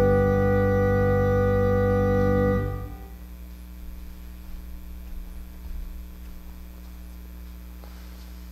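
Organ holding the final chord of a piece, which is released about three seconds in; after it only a low steady hum remains.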